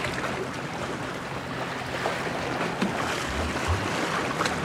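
Sea waves washing against the shore, with wind buffeting the microphone in a steady rush.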